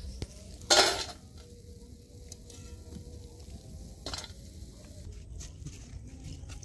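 Dal pakoras being deep-fried in a karahi of hot oil. Two short metal clatters come from the wire skimmer and steel plate, about a second in and again around four seconds. Then fresh batter goes into the oil and sizzles with fine crackles.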